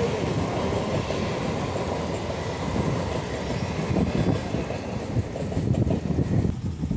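Electric suburban local train running past on the tracks: a steady rumble of wheels and coaches that thins out near the end as the last coach goes by.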